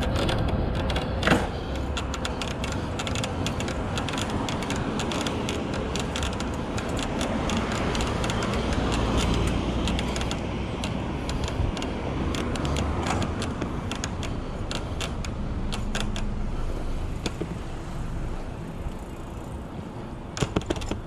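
Cero electric cargo bike being ridden over city pavement: steady low rushing of wind on the microphone and tyre noise, with frequent small clicks and rattles from the bike and its front basket, and a sharper knock about a second in.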